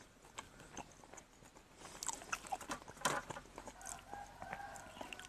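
Faint clicks and soft rustles of fingers peeling the skin off a steamed makoo tuber, with small chewing sounds; near the end a faint drawn-out animal call in the background.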